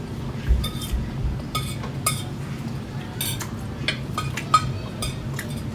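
Fork clinking and scraping against a plate during a meal of spaghetti: a run of short, irregular clinks, some ringing briefly, over a low steady hum.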